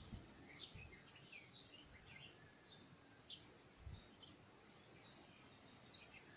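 Near silence with many faint, short bird chirps.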